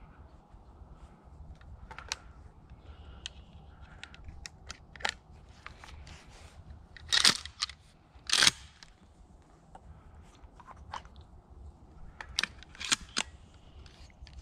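Irregular crunching of dry leaves and twigs underfoot, with two loud crunches about halfway through and a quick cluster near the end.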